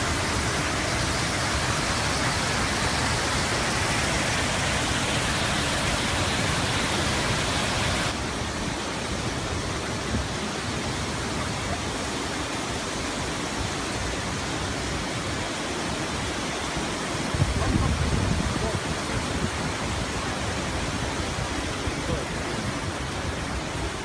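Waterfalls and river rapids rushing: a steady, even noise of falling water. About eight seconds in it changes abruptly to a duller, slightly quieter wash, and later a brief low rumble rises over it.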